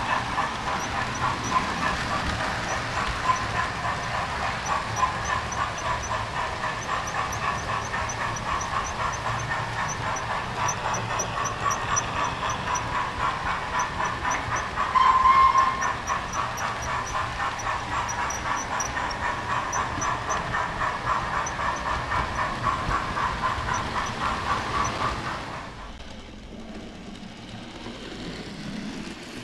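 Model railway train running along the track, heard from on board: a steady electric whine with a fast rattling rhythm from the wheels on the rails. A brief louder tone sounds about halfway through, and the running sound drops away sharply near the end.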